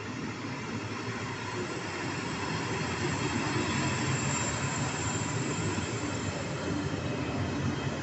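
Trenord ALe 582 electric multiple unit rolling slowly past at close range, its wheels and running gear rumbling steadily and growing slightly louder. A thin high wheel squeal comes through about halfway.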